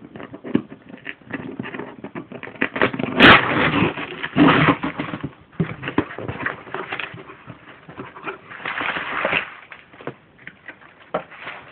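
Parcel packaging being torn open and handled: irregular rustling, crackling and ripping, loudest about three to five seconds in, with another burst of rustling near nine seconds.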